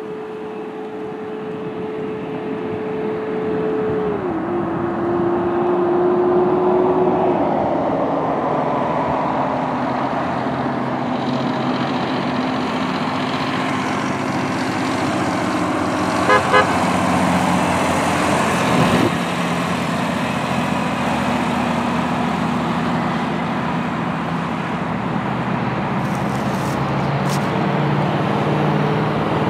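Heavy multi-axle dump truck's diesel engine drones as it approaches and passes on the highway, with tyre and traffic noise from other vehicles. The engine note steps down in pitch about four seconds in. A vehicle horn gives two quick toots about halfway through.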